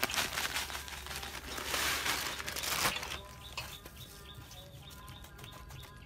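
Panko breadcrumbs poured from a plastic bag onto a batter-coated chicken: a dry rustling hiss that swells and stops about three seconds in.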